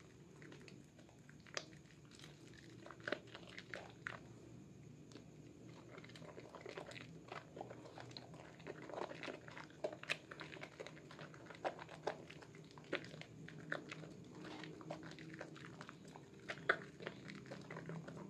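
Wet squishing and crackling as a bar of red Sehat soap is squeezed and rubbed between bare hands in foamy water, building lather, with irregular sharp pops and squelches over a faint low hum.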